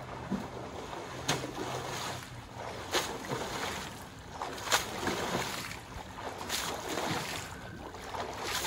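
A swimmer doing breaststroke in a pool: water splashing with each stroke, about once every second and a half or so, over a steady slosh of moving water.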